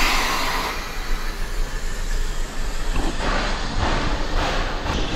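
1928 Lima Shay steam locomotive standing and hissing steam, a steady hiss over a low rumble. A louder rush of hiss comes at the start, with two more surges about three and four and a half seconds in.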